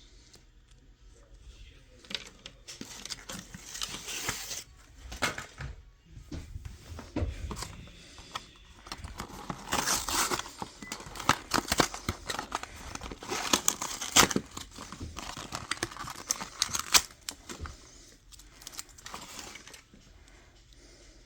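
Toy packaging being handled and torn open: irregular crinkling, tearing and sharp clicks, loudest about halfway through, then settling down near the end.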